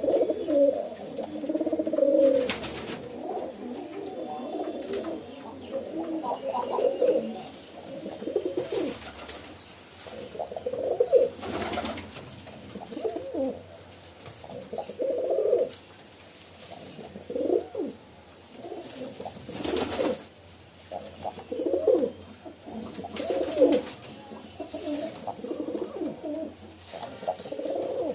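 Pigeons cooing, one low call after another every second or two, with several birds overlapping at times. Brief sharp rustles or clicks are heard now and then among the calls.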